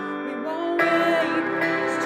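A song with a woman's voice singing over instrumental backing; the music gets louder a little under a second in.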